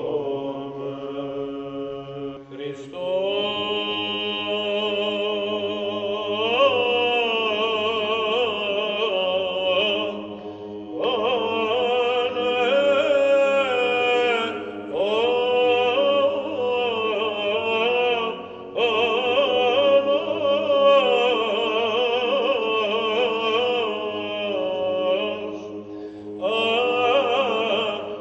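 Men's voices singing Byzantine chant: an ornamented melody over a steady held drone note (the ison). The melody comes in phrases with short breaks between them.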